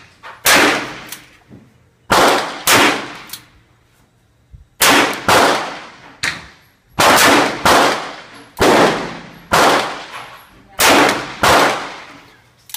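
Handgun shots on a range, about a dozen, mostly in quick pairs about half a second apart, each sharp crack followed by a short fading echo.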